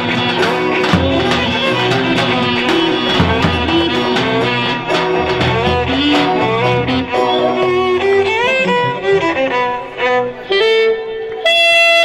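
Live Roman dance music: a clarinet plays a fast, ornamented melody over a steady drum beat. About two-thirds of the way through, the drums drop away and the clarinet carries on almost alone, ending on long held notes.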